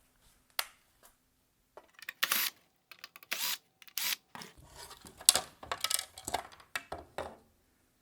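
Small Phillips screws and the plastic shroud and projector parts of a halogen headlight assembly clicking and rattling as they are handled while the shroud screws come out. There are a few separate sharp clicks, then a quicker run of clicks and scrapes in the second half.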